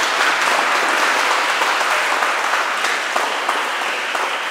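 Audience applauding: a dense, steady clapping that starts to thin into separate claps near the end.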